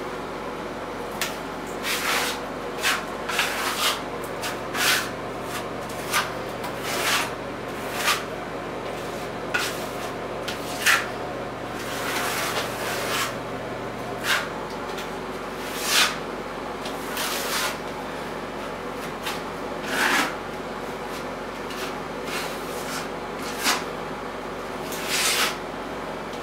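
A putty knife scraping and smoothing wet RedGard liquid waterproofing membrane over fiberglass mesh tape, in short, irregular strokes about once a second, over a steady low hum.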